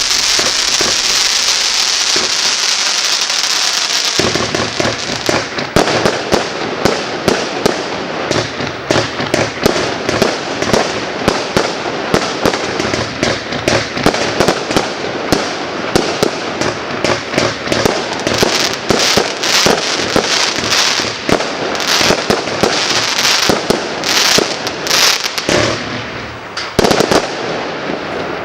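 A 49-shot, 20 mm compact firework cake firing: about four seconds of steady hissing, then a long run of rapid crackling pops and bangs that dies away at the end.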